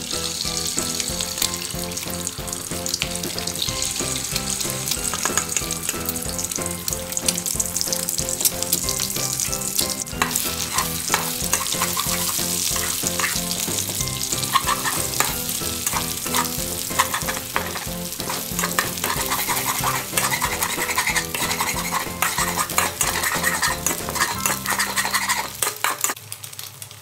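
Food for egg fried rice sizzling in a hot oiled pan while a spatula stirs and scrapes it, with many quick clicks of metal on the pan. The sizzling and stirring stop shortly before the end.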